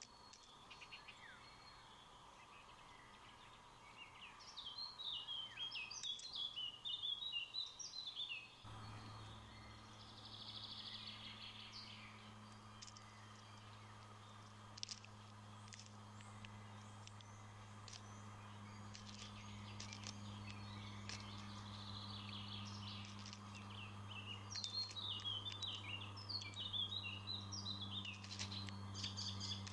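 A songbird sings two runs of quick, warbling high notes, one early and one near the end, over faint outdoor background. A steady low hum starts abruptly about nine seconds in and continues.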